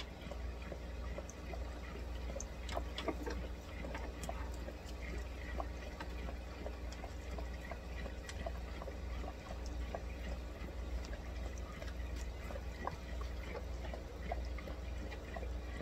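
Air-driven sponge filter bubbling in a glass fishbowl: small irregular pops and trickles of air bubbles breaking at the water surface, over a steady low hum.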